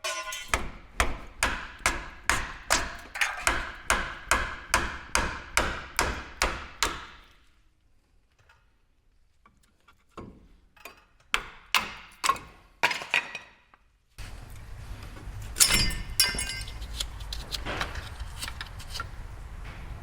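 Hammer blows on metal, sharp and ringing, about two and a half a second, knocking at a stuck part of a pickup's front brake assembly. The blows stop about seven seconds in, and a short second run of strikes follows a few seconds later.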